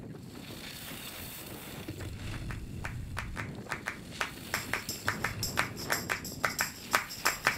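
Percussive music fading in: rhythmic hits, about three or four a second, grow steadily louder over a low steady rumble, with high jingling joining them about halfway through.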